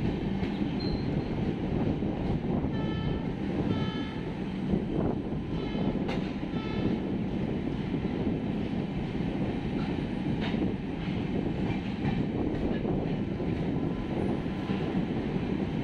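Darjeeling Mail passenger train with LHB coaches running on the rails: a steady rumble of wheels and track. A few short high-pitched tones come in clusters during the first seven seconds or so.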